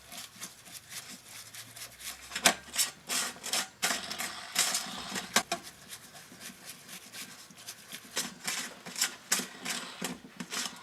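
Crankshaft ball bearings being washed by hand in petrol to strip out their factory grease, with irregular metallic clicks and rattles.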